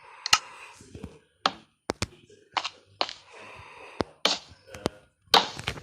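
Irregular sharp taps and knocks, about a dozen, with short stretches of noise between them.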